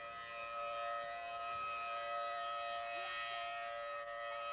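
Outdoor civil defense siren sounding a steady, level chord for a tornado warning, swelling louder through the middle.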